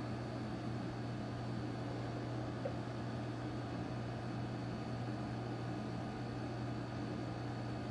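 Steady low hum and hiss of room background noise, with a faint thin high whine held constant throughout.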